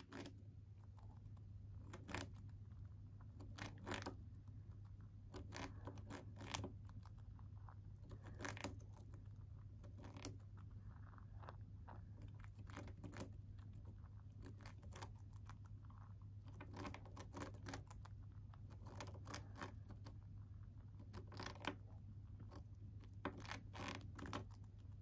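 Long-haired hamster gnawing a dry, crumbly piece of food: small crisp crunches and clicks that come in irregular clusters every second or two, over a steady low hum.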